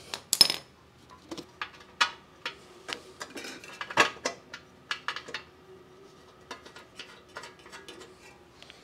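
Scattered small metal clinks and plastic taps from screws and hand tools being handled around a mower engine's plastic blower housing as it is seated. The strongest clicks come just after the start and again about four seconds in.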